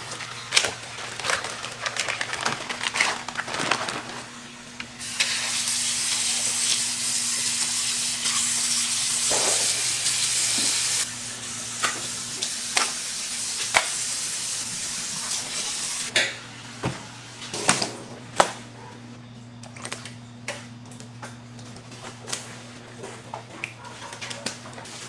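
Gloved hands handling large raw pork shoulders in a stainless-steel tub: repeated wet slaps, squelches and crinkles of meat and plastic wrap. A steady hiss starts about five seconds in and stops suddenly about six seconds later, over a steady low hum.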